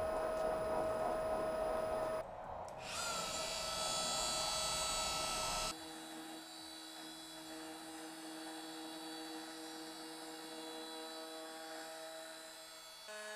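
Makita trim router running at a steady high whine, with a carbide end mill milling a slowly turning duralumin blank on a lathe; about two seconds in the sound drops out and the motor spins back up, and from about six seconds on the whine is quieter and lower as the cutter works the metal. Here the aluminium sticks to the cutter, so it chews rather than cuts cleanly.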